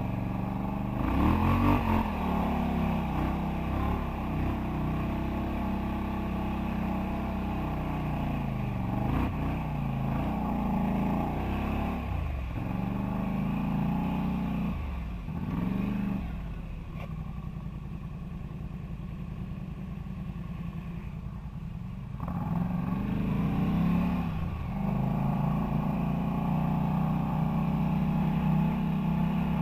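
Quad bike (ATV) engine running under varying throttle, its pitch rising and falling. About halfway through it falls back to a low, steady idle for several seconds, then revs up again and holds a steady higher pitch to the end.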